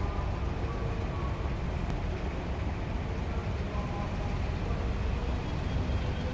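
Steady low rumble of an abra water taxi's diesel engine running.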